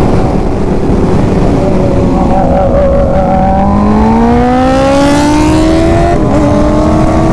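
Superbike engine accelerating hard, its note climbing steadily in pitch from about two seconds in, dipping briefly near the end and then pulling on, under heavy wind rush.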